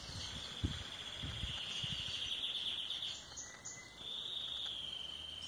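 A steady high insect trill with a fine rapid pulse. It breaks off for about a second past the middle, then resumes a little lower. A few low thumps come in the first two seconds.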